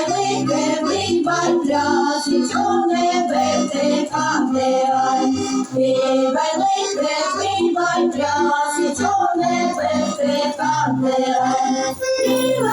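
A Sámi vocal ensemble singing a song together, several voices in chorus, over instrumental accompaniment with a steady pulsing bass line.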